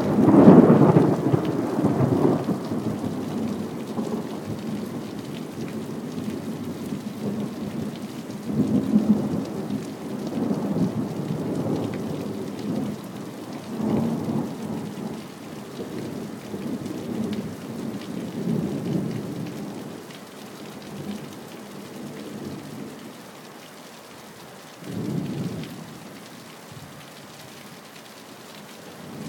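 Thunder rumbling in an electrical storm: a loud peal at the start fades over several seconds, then further rolling rumbles come about nine and fourteen seconds in, with a short one near the end. Steady rain falls underneath.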